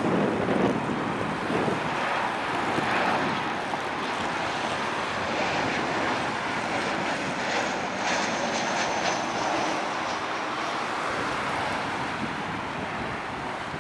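Boeing 737-700 airliner on final approach passing close by, its CFM56-7B turbofan engines giving a steady rushing jet noise at approach power. A thin high whine comes through around the middle as it passes.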